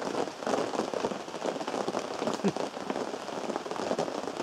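Steady rain falling on a fabric tarp shelter overhead, a dense patter of many drops.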